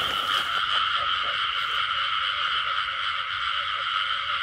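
Breeding chorus of rice-field frogs calling: a steady, unbroken drone from many animals, with softer low croaks repeating underneath.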